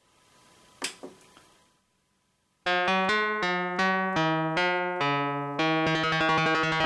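Artisan Iliad analog-hybrid polysynth playing an electric-piano-like patch: a run of struck notes, each fading after it starts, about two to three a second, beginning about two and a half seconds in after a couple of faint clicks.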